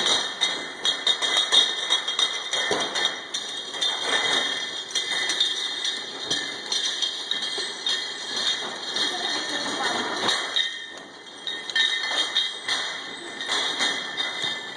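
Automatic bottle labeling machine running, its conveyor carrying glass bottles that knock and clink irregularly against one another and the guides, over a steady high machine tone, with people talking in the background.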